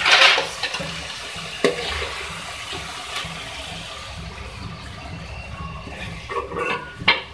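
Thick meat stew sizzling and bubbling in a metal pot over the heat as a ladle scoops it out. There is a loud scrape-and-splash at the start and a sharp knock of the ladle about one and a half seconds in.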